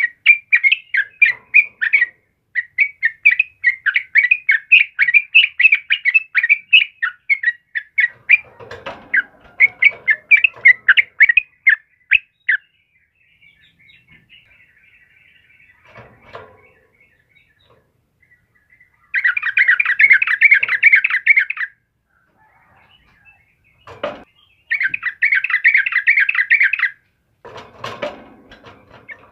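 Yellow-vented bulbul (trucukan) singing: a long run of rapid, clear repeated notes, then two dense, fast chattering trills a few seconds apart. A few soft low thumps fall between the phrases.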